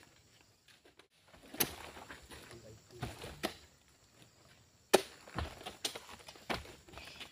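Oil palm fruit bunches being handled and loaded onto a truck: a string of irregular sharp thuds and knocks, about seven in all, the loudest about five seconds in.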